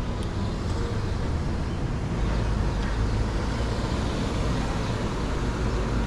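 City street traffic noise heard from a moving bicycle: a steady wash of vehicle sound with a low rumble that gets stronger about two seconds in.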